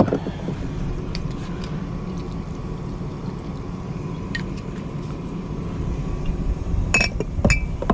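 Steady low rumble, with a few short light clicks, the clearest two near the end.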